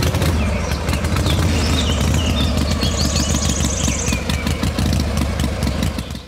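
Tractor engine running steadily with a fast, even chug, with birds chirping over it.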